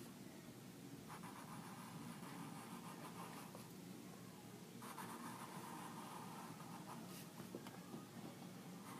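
Marker drawing on paper, a faint scratching in two long stretches of strokes, with a short pause in between.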